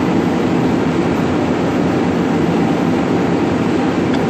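Steady, loud machine drone with no strikes or changes, like a workshop fan or machine running continuously.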